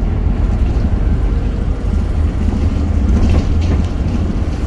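City bus in motion, heard from inside the passenger cabin: a steady low engine and road rumble.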